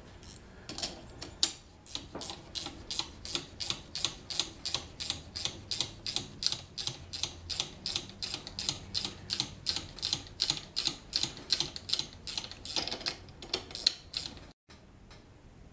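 Ratchet wrench clicking steadily, about three clicks a second, as it runs a nut down the bolt of a leaf-spring pack and draws the eight steel leaves together. The clicking stops abruptly near the end.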